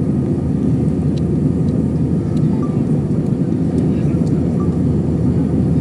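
Airliner cabin noise: a steady, deep rumble of engines and airflow with no change in level.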